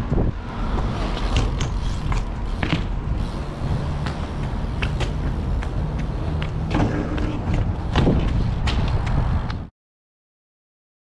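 BMX bike riding over paving: a steady low rumble with scattered sharp knocks and clicks from the bike. The sound cuts off abruptly near the end.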